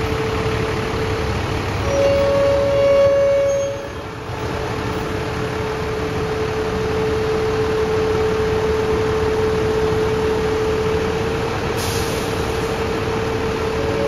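A bus's basuri telolet air horn holding one long steady note, with a second, higher note joining for under two seconds about two seconds in, over the coach's idling engine.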